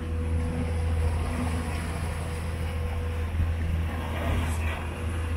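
Mercury 3.4-litre V6 four-stroke outboard running steadily with the boat under way, a smooth low hum over the rush of the wake, with a brief splash of spray near the end. The engine is quiet and free of vibration.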